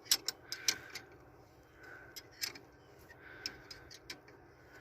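Irregular metal clicks and ticks of a 14 mm wrench working a brake caliper guide-pin bolt, several a second and loudest about the first second.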